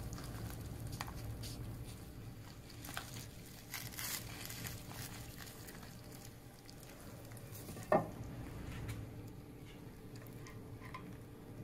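Metal serving spoon working turkey, gravy and stuffing out of a crock pot: faint wet stirring and scraping with scattered light clicks, and one sharper knock about eight seconds in.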